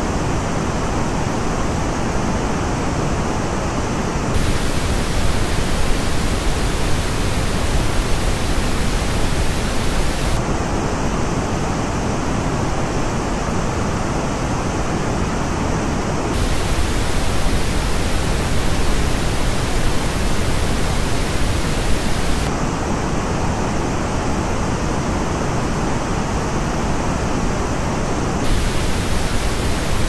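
Steady pink noise that switches about every six seconds between the flat original and a copy reproduced through Audeze LCD-2 planar-magnetic headphones. In the headphone copy, heard at the start, around ten seconds in and around twenty-two seconds in, parts of the upper treble drop out.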